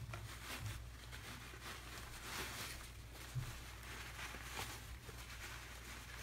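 White wrapping paper rustling and crinkling in soft, irregular bursts as it is pulled off a plastic model horse, with one soft low thump about three and a half seconds in and a faint low hum underneath.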